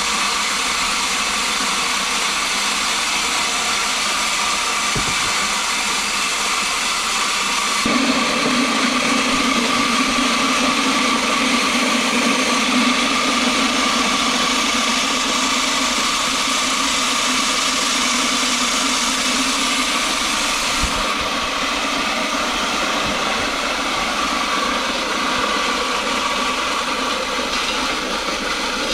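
Electric feed grinder running steadily while grinding corn, a continuous motor hum with grinding noise. The sound changes about eight seconds in, turning deeper, and shifts again about 21 seconds in.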